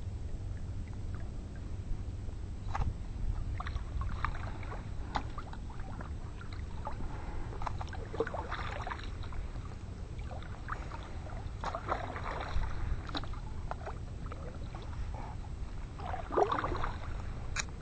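Water lapping and splashing against a fishing kayak, with scattered small knocks and splashes, over a low steady rumble.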